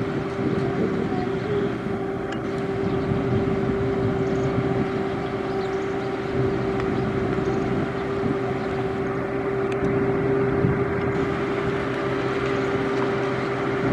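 Heavy road-construction machinery running at a steady pace: continuous engine noise with one constant humming tone over it.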